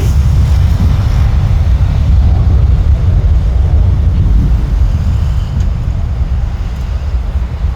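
Airliner taking off: a loud, steady, deep rumble of engines and airframe, easing a little after about five seconds.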